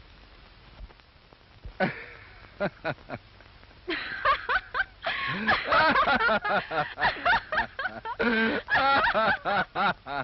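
Laughter: a few short bursts about two seconds in, then continuous loud laughing from about four seconds in, over the hiss of an old film soundtrack.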